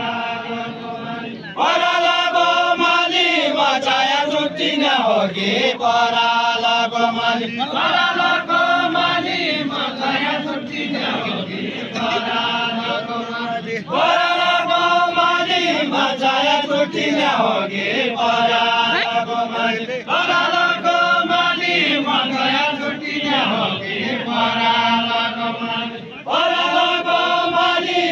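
Deuda folk song sung unaccompanied in a chanting style, voices trading short repeated phrases about every two seconds.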